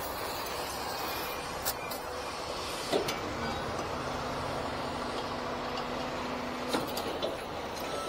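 Heavy construction machinery running at a distance: a steady engine noise, with a low hum holding for about three seconds mid-way that cuts off with a sharp click, and a few other sharp clicks.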